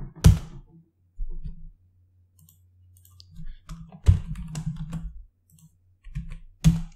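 Computer keyboard keystrokes and clicks while code is typed and run: scattered sharp taps, a loud one just after the start and further clusters about four seconds in and near the end.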